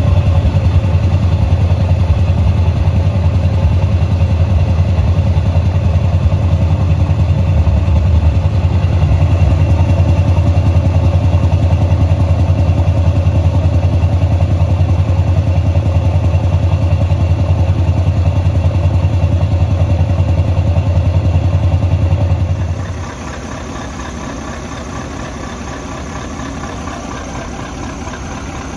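Scania V8 diesel truck engine running loud and steady with a deep rumble. About 23 seconds in the sound drops suddenly to a much quieter, lighter engine note.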